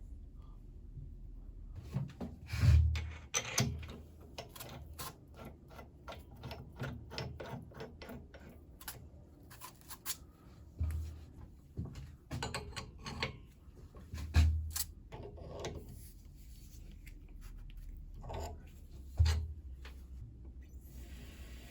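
Handling noises in a workshop: an irregular run of short clicks and knocks, with four heavier thumps spread through.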